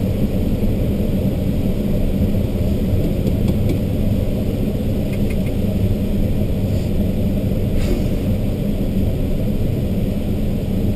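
Steady low rumble of airflow around an ASK-21 glider's canopy and fuselage in flight, heard inside the cockpit.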